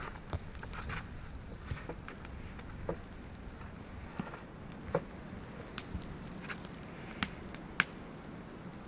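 Scattered sharp wooden knocks and clicks as a felled log is worked on by hand, about one a second at irregular spacing, with one louder strike near the end, over a steady low hiss.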